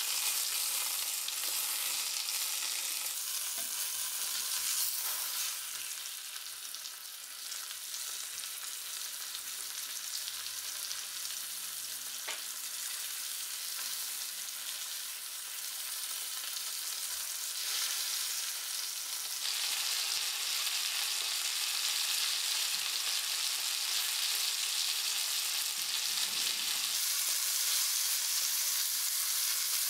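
Chicken breasts sizzling in oil and butter in a cast-iron skillet, a steady high hiss of frying that grows louder for the last ten seconds, with a single click about twelve seconds in.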